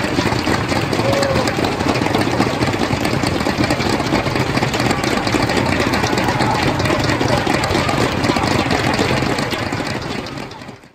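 Crowd noise in a large sports hall: many voices talking at once, fading out near the end.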